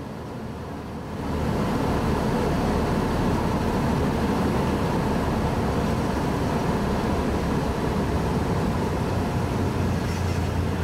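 Cessna 172S's 180 hp engine and propeller heard from the cockpit. It steps up about a second in to a louder, steady run as power is added for the takeoff roll of a touch-and-go.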